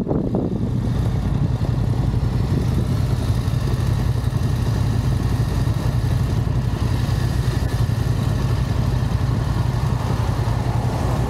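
Motorcycle engine running steadily at an even pitch, with no revving.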